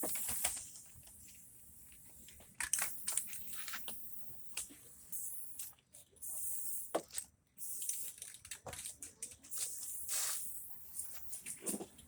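Aerosol can of metallic silver spray paint hissing in several short bursts, with scattered clicks and knocks from handling the can and box in between.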